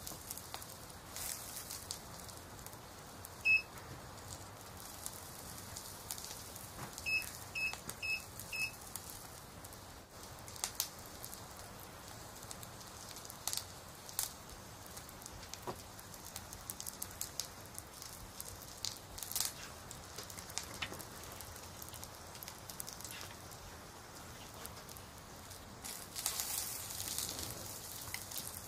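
Soft crackling: scattered clicks and pops over a steady hiss. A short high chirp sounds about three and a half seconds in, then four quick chirps in a row a few seconds later.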